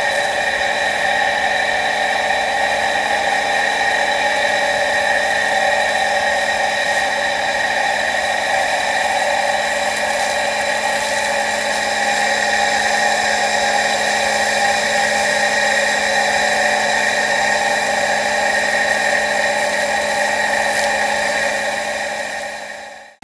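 Irrigation water pump's motor running steadily with a constant whine, driving water through a hose onto a rice seedling bed; it fades out at the very end.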